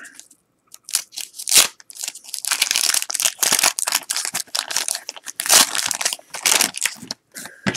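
Wax-paper wrapper of a 1989 Topps football card pack crinkling and tearing as it is opened by hand, in irregular bursts of crackling.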